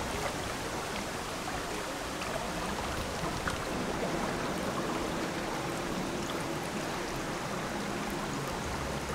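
Shallow river running over rocks: a steady rushing of water.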